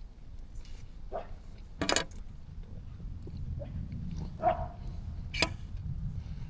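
A dog barking in the distance, two short barks a few seconds apart. Sharp clicks come at about two seconds and again near the end, and a steady low rumble runs underneath.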